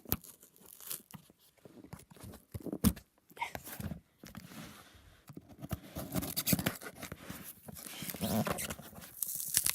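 A cardboard parcel being worked open by hand: irregular taps, scrapes and rustles of cardboard and packing material, busier in the second half.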